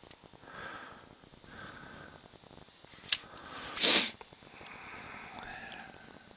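A sharp click about three seconds in, then a short, loud sniff through the nose; otherwise only faint handling noise.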